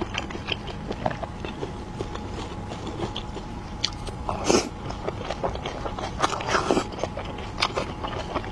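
Close-miked eating of a dumpling: steady wet chewing and mouth clicks, with a few louder bites, the loudest about four and a half seconds in.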